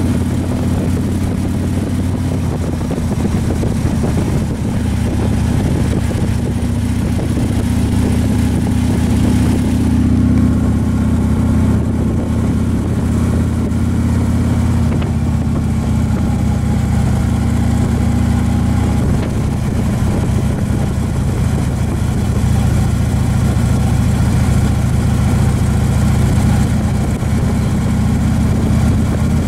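Touring motorcycle engine running steadily at road speed, with wind rush over the microphone. The engine note drops a little about halfway through.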